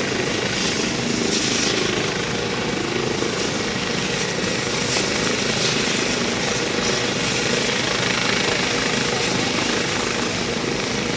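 Medical helicopter's rotor and engine running steadily, a constant broad rush with a low steady hum beneath.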